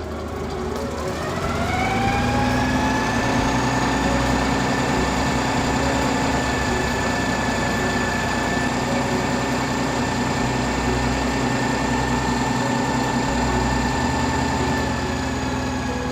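Concrete pump truck's engine revving up over a second or two to a higher, steady speed, holding there, then starting to drop back near the end.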